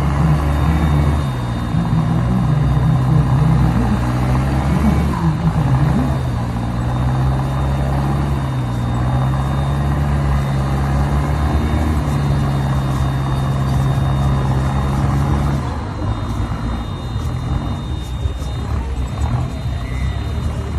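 Off-road Toyota 4x4's engine working hard through mud, its pitch wavering up and down as the throttle is worked. About three-quarters of the way through it eases off and turns fainter.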